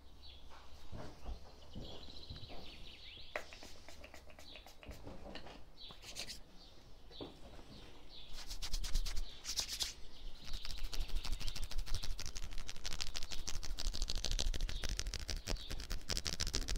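Birds chirping faintly. About halfway in, a dense run of rapid, close-up rubbing and tapping sounds from hands working on a client during a massage takes over and gets louder.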